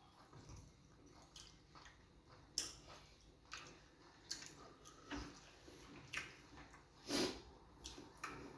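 Wet eating sounds of fufu with groundnut soup: soft chewing, lip smacks and squelches, a scattered series of small clicks, the loudest about two and a half seconds and seven seconds in.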